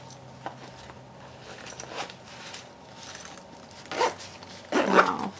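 Zipper on a small camera carrying bag being pulled, amid light rustling and handling as a compact camera is fitted inside. Two louder zip strokes come near the end.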